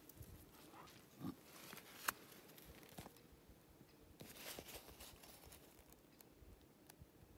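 Near silence, broken by a few faint clicks and rustles of handling, with one sharper click about two seconds in.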